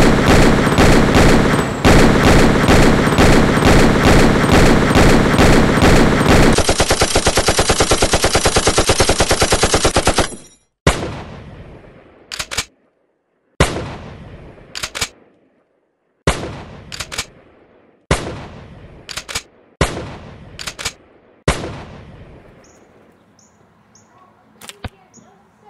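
Gunfire sound effects. First comes about six seconds of rapid repeated shots, then about four seconds of much faster automatic fire. After that, about a dozen single shots follow, some in quick pairs, each trailing off in an echo.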